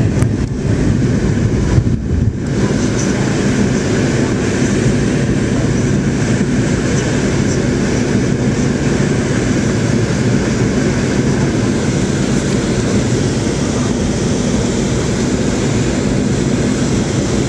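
Cabin noise of a McDonnell Douglas DC-9-40 climbing out just after takeoff: its rear-mounted Pratt & Whitney JT8D turbofans at climb power give a loud, steady roar with a low hum. The roar dips briefly about two seconds in.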